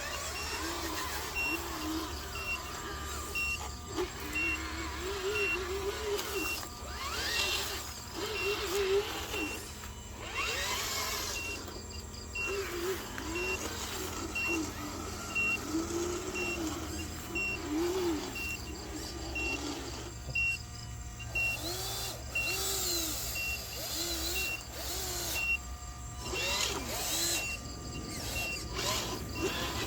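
Radio-controlled truck with its motor revving up and down in repeated short swells, while a reversing-alarm beep repeats about once a second.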